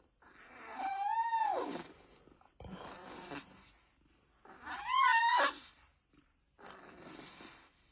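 Sleeping kitten snoring, a breath about every two seconds. Two of the breaths carry a squeaky, whistling note that rises slightly, then falls away.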